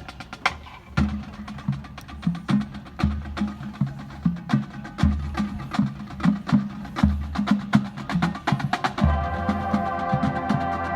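Marching band percussion playing a quick, steady pattern of sharp woody clicks over a low drum hit about every two seconds. About nine seconds in, a held chord of several sustained notes enters over the percussion.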